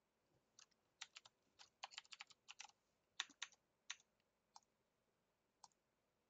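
Faint, scattered clicks of a computer keyboard and mouse, with a quick run of keystrokes about two seconds in.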